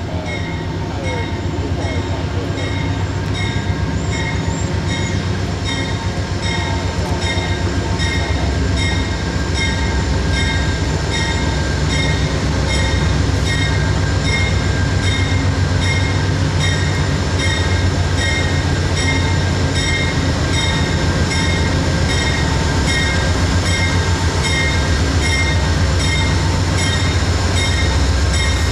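Amtrak GE P42DC diesel locomotive approaching with its bell ringing steadily, about twice a second, over the low rumble of its diesel engine. The sound grows louder as it nears.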